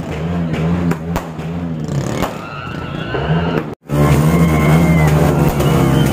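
Loud street crowd of cheering fans, with sharp firecracker pops in the first two seconds over a steady low drone. The sound cuts out for an instant just under four seconds in and comes back louder.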